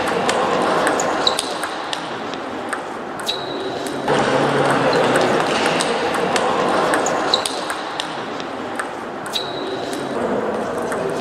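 Table tennis rally: the ball clicks sharply off the bats and the table in an irregular run of hits, some leaving a short ringing ping. One player uses long-pimple OX rubber and the other short pimples. A steady murmur of voices and play in a busy sports hall runs underneath.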